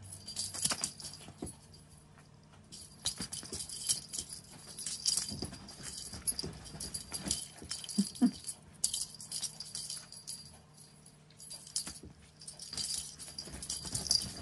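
Small bells jingling and rattling in irregular bursts as cats play. Two short low squeaky sounds come about eight seconds in.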